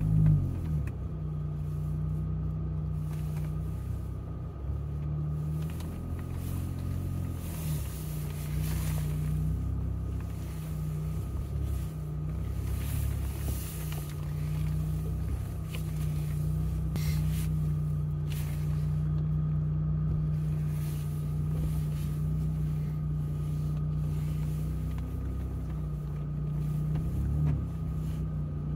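Jeep Gladiator's engine droning at low trail speed, heard from inside the cab. It is steady and low, and its pitch shifts briefly with the throttle a few times.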